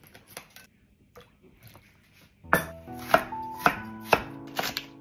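Chef's knife slicing an onion on a wooden cutting board: about five sharp chops, roughly two a second, starting about halfway in, with background music coming in together with them. Before that, only faint crinkles and clicks of a plastic package being handled.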